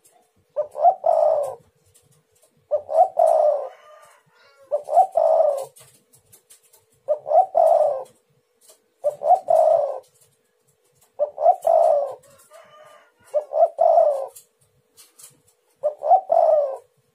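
Spotted dove (tekukur) singing its repeated cooing song, eight phrases of about a second each, coming roughly every two seconds.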